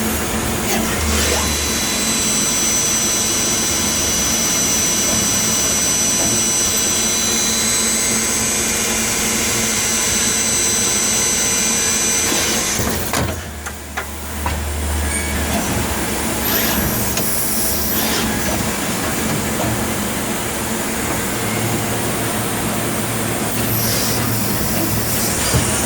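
Tsugami BO205 Swiss-type CNC lathe milling slots, its machine noise steady throughout. A high steady whine runs from about a second in to about halfway, then drops away in a brief lull before the machining noise carries on.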